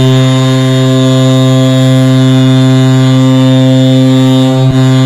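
Hockey goal horn sounding one long, steady, low blast, with a momentary dip near the end.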